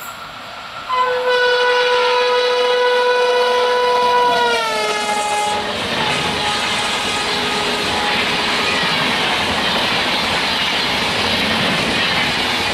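Passing Indian Railways express train: the WAP-7 electric locomotive's horn sounds a steady note for about four seconds, its pitch dropping as the locomotive goes by. The horn stops and is followed by the loud rush and clatter of the coaches passing at speed.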